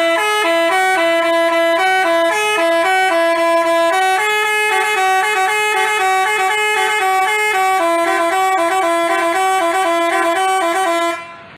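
Telolet basuri bus horn playing a quick tune, its notes in two parts at once. It cuts off about eleven seconds in.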